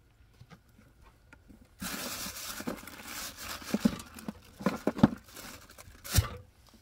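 A clear plastic bag crinkling and rustling as it is handled inside a small plastic cooler. Starting about two seconds in, with several knocks of items against the cooler.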